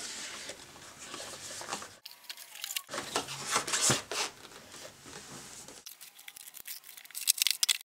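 Packaging being handled during an unboxing: crinkling and rustling in several abruptly cut stretches, with a quick run of sharp clicks and taps near the end.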